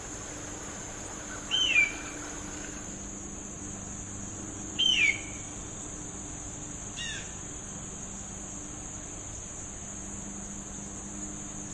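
A bird of prey gives three short, descending screams, about 1.5, 5 and 7 seconds in. The first two are loud and the third is faint. They sound over a steady, high-pitched insect drone.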